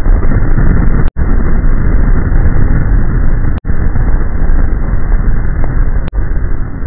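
Loud, muffled rumbling noise like an explosion sound effect, dropping out for an instant about every two and a half seconds as it loops.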